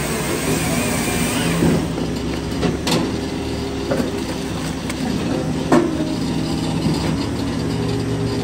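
Firewood processor running: its engine and hydraulics hum steadily. Scattered wooden knocks and clunks come as split firewood moves through the machine and along its conveyor; the sharpest is about five and a half seconds in.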